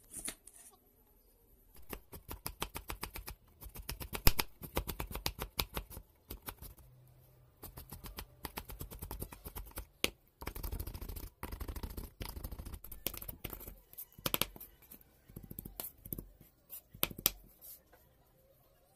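Steel cleaver rapidly chopping banana flower on a wooden chopping board: quick runs of sharp knocks with short pauses between them, stopping near the end.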